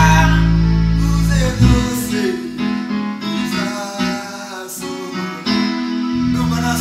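Gospel praise music: an instrumental backing of bass, guitar and keyboard, with some singing. The bass drops out for a few seconds in the middle and comes back near the end.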